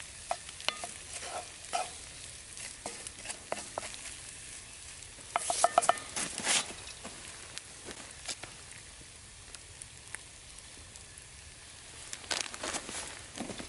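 Scrambled eggs and hash browns sizzling in a cast-iron skillet over a campfire while a wooden spatula stirs and scrapes through them. There is a louder burst of scraping and knocking about halfway through, and another near the end.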